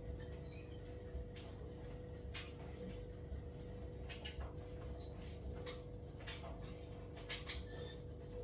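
Light clicks and knocks of kitchen containers and utensils being handled while water is measured out, scattered irregularly with the sharpest knock near the end, over a steady electrical hum.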